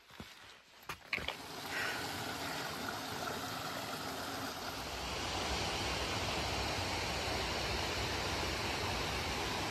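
A few footsteps on a rocky trail, then the steady rush of a mountain creek running high after heavy rain. The rush grows louder about five seconds in.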